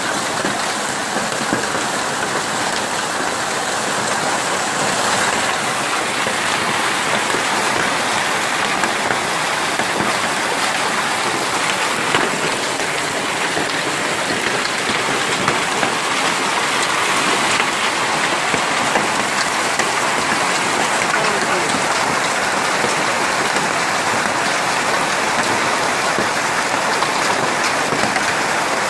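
Heavy hail mixed with rain pelting the ground: a dense, steady hiss, with scattered sharp ticks of individual hailstones striking.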